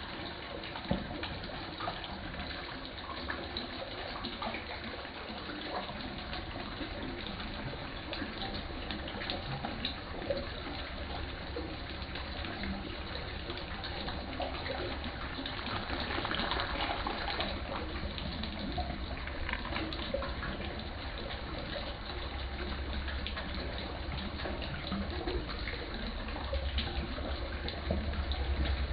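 Steady splashing of water running into a fish pond. It gets a little louder about halfway through, with a low rumble underneath near the end.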